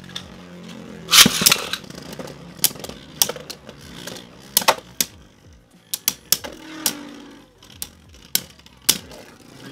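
Two Beyblade Burst tops, Strike Valtryek V3 and Doomscizor D3, spinning in a plastic stadium with a whirring hum and clacking sharply against each other and the clear stadium wall. The clashes come many times, loudest about a second in.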